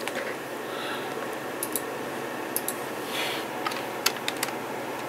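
A few scattered key clicks on a computer keyboard, spaced roughly half a second to a second apart, over a steady background hum.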